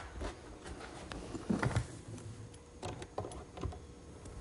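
A few light clicks and knocks from tacking a glued wooden tray frame with brads: a pneumatic brad nailer set against the corners and the wood pieces shifting on the bench.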